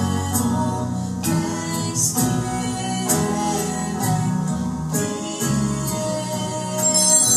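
Hymn music with singing. Near the end, altar bells start ringing as the monstrance is taken up for the benediction.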